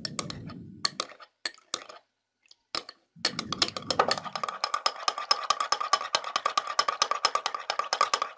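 Spoon stirring in a small drinking glass, clinking against the glass wall: a few scattered clinks at first, then from about three seconds in continuous fast clinking with a light glassy ring, as egg yolk is stirred into water to break up the lumps.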